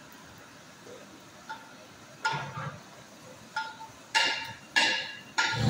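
A stainless steel bowl clinking and ringing briefly, knocked about six times as topping is scooped out of it by hand, the clinks coming closer together and louder in the second half.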